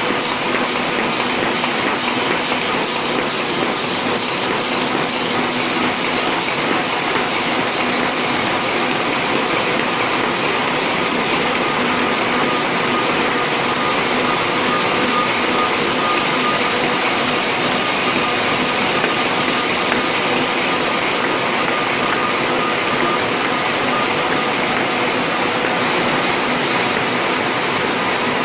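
EMS-UT70 automatic express mail envelope forming machine running at speed: a steady mechanical whir and clatter of rollers and feed mechanisms, with a fast, even ticking.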